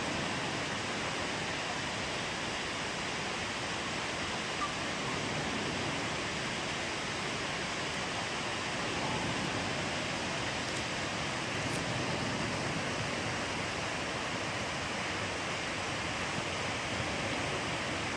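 A large waterfall pouring: a steady, even rush of falling water.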